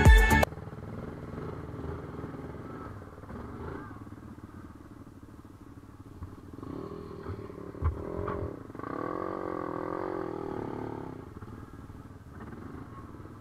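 Off-road ATV engine running, with the revs rising and falling in waves through the middle of the stretch. A single sharp knock comes just before the revving is at its loudest.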